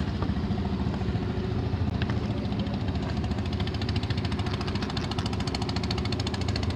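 An engine idling steadily with a rapid, even knock, low and unchanging throughout.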